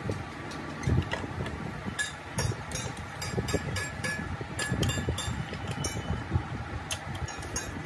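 Metal hand tools working bolts on a bare diesel engine block: irregular sharp metallic clicks and clinks, several in quick succession about two to four seconds in, over a low, uneven rumble.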